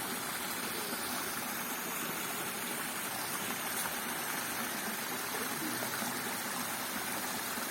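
River water flowing steadily, a constant rushing of the stream.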